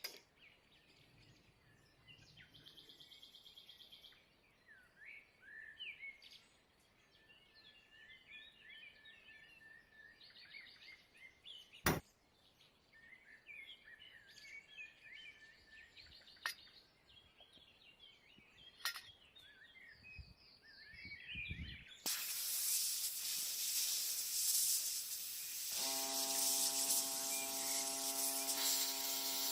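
Birds chirping faintly, with a few sharp clicks. About 22 s in, a loud, steady spray hiss starts, paint being sprayed. A steady hum joins it a few seconds later.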